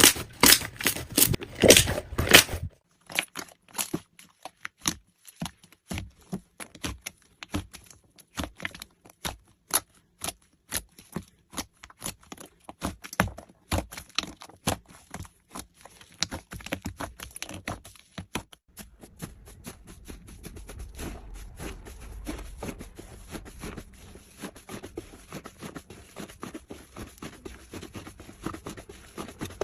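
Slime being squeezed and worked by hand close to the microphone, giving a fast, irregular run of small pops and crackles. The first couple of seconds are loudest, and about two-thirds of the way in a softer, continuous squishing joins the clicks.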